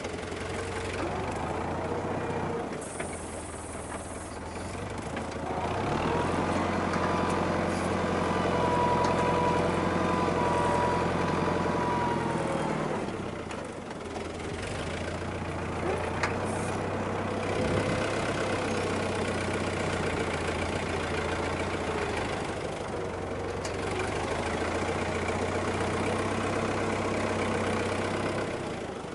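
Farm tractor engine running steadily, growing louder for several seconds in the middle as it takes on more throttle, with a single knock a little past halfway.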